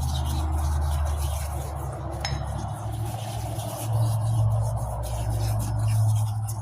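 Metal turbo parts clinking and scraping as they are washed and handled, over a steady low hum.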